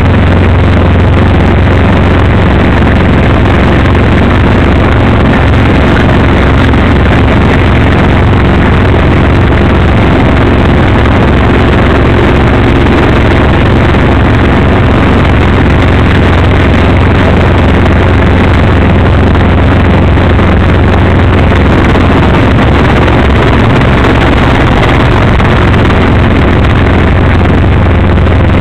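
Light helicopter's engine and main rotor running steadily, heard from inside the cockpit as a loud, constant drone with a strong low hum, while it air-taxis low along a runway.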